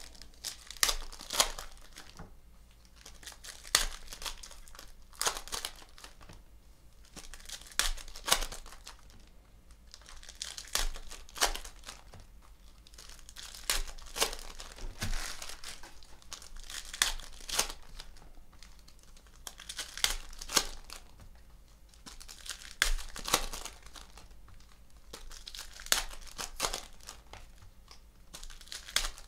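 Foil trading-card pack wrappers being torn open and crinkled by hand, a short tearing burst every two to three seconds.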